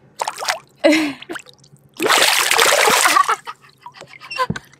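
Smallmouth bass splashing at the water's surface as it is let go by hand at the side of the boat. There is a short splash near the start and a louder splash of about a second, two seconds in, with small drips and ticks after it.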